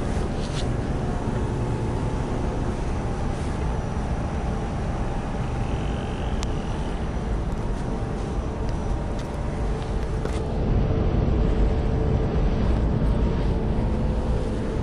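Yamaha FZ6's inline-four motorcycle engine running steadily, a low rumble with a steady hum over it. It gets a little louder about ten seconds in.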